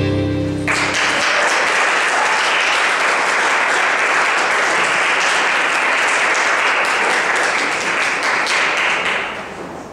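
The music's last chord breaks off under a second in, and an audience breaks into steady applause that dies away near the end.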